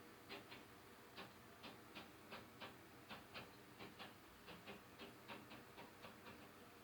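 Sharp, irregular taps, roughly three a second, heard from the condo upstairs through the ceiling; they stop a little before the end. The downstairs owner takes them for construction work going on in that unit.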